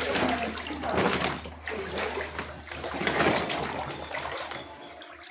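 Feet wading through ankle-deep floodwater indoors, the water splashing in a series of swishes about once a second that die away near the end.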